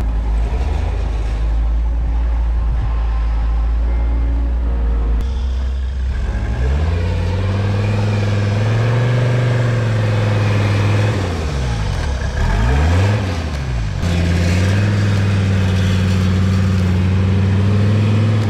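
1985 Toyota pickup's engine working the truck through deep snow, its tyres spinning. The revs climb and fall back twice in the middle, then hold steady and higher near the end.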